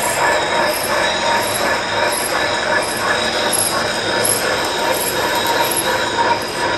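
Monarch engine lathe running with its spindle turning: a steady mechanical whir of the headstock gearing with a high, even whine over it.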